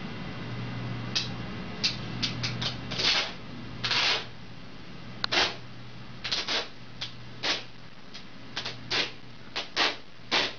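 A cat licking and mouthing sticky tape on the edge of a stool seat. It makes a series of short, scratchy licking sounds at irregular intervals.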